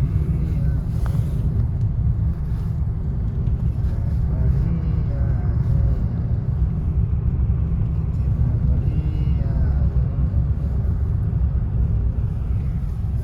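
Steady low rumble of a vehicle driving, with faint voices talking in the background.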